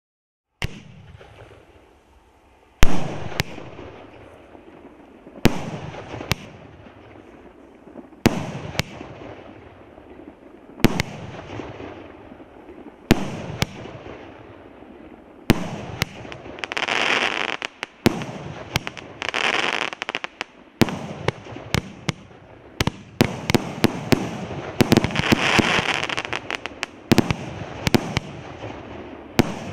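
A 49-shot, 50 mm consumer fireworks cake firing: single sharp bangs every two to three seconds at first, then from about halfway faster clusters of bangs with long stretches of crackling between them.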